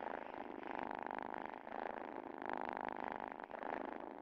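A cat purring, in alternating phrases of about a second each as it breathes in and out. It is purring while excited by valerian on a foot's ankle bandage.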